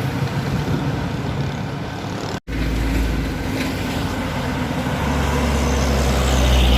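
Heavy truck engine running under load on a steep climb, its low rumble growing louder in the second half. The sound drops out for a split second about two and a half seconds in, at a cut.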